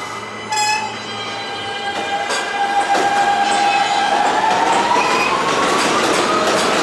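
R160 subway train approaching, its running noise growing louder. From about two seconds in, a high wheel squeal slowly rises in pitch.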